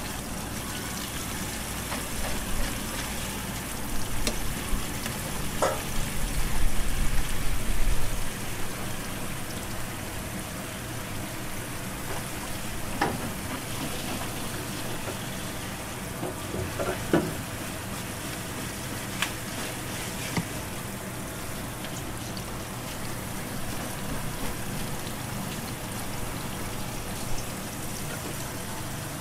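Knife scraping the slime off a split eel on a plastic cutting board: a few short sharp knocks and scrapes over a steady kitchen hiss, with a louder, deeper stretch between about four and eight seconds in.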